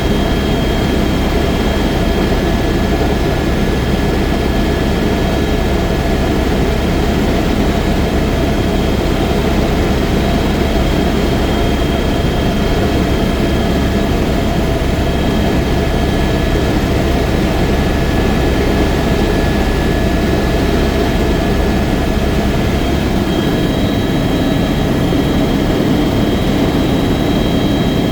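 Helicopter in flight, engine and rotor running steadily: a loud constant drone with fixed high whining tones over it. The deepest part of the rumble eases slightly about 23 seconds in.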